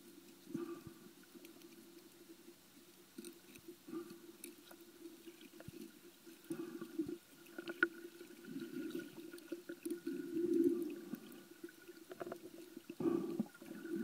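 Muffled underwater water movement heard through a camera's waterproof housing, swelling and fading irregularly, loudest about ten seconds in, with a few faint clicks.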